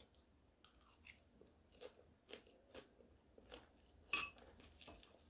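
Close, soft crunching of someone chewing a mouthful of crisp lettuce salad, faint crackles about twice a second. A louder, sharper click about four seconds in.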